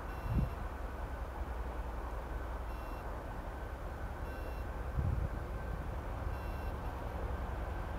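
TEP70 diesel locomotive's engine working as it pulls a passenger train away from the station, a steady low rumble. Two dull low thumps stand out, about half a second in and about five seconds in.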